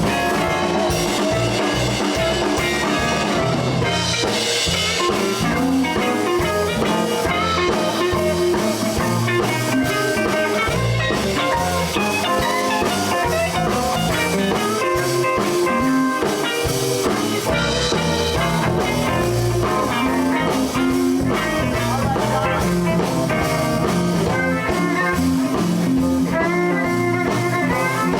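Live blues band playing an instrumental passage: guitar lines over bass and a steady drum-kit beat.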